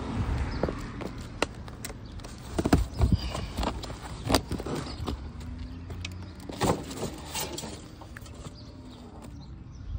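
Zamberlan leather hiking boots stomping on flattened cardboard boxes and stepping on concrete: irregular thuds with cardboard crunching. The hardest strikes come a little under three seconds in and again near the middle.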